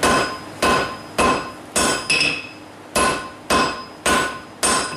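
A 4-pound hand hammer striking white-hot steel cable on the anvil. It lands eight heavy blows, about one every 0.6 s with a short break in the middle, each with a brief metallic ring. The heavy hits are forge-welding the strands of the cable together.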